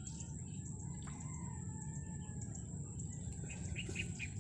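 Wild birds calling in the background: a few drawn-out whistles about a second in and a quick run of three chirps near the end. Underneath is a steady high thin tone and low rumbling ambient noise.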